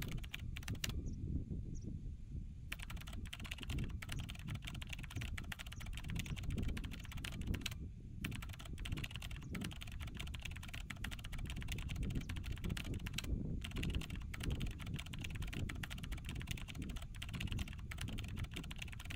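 Rapid keyboard-typing sound effect, a dense run of clicks starting a few seconds in, with two brief pauses, over a steady low rumble.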